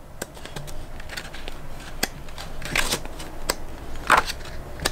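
Paper rustling as the pages of a glossy printed instruction manual are turned and handled: an irregular run of short rustles and crisp flicks, the loudest about four seconds in.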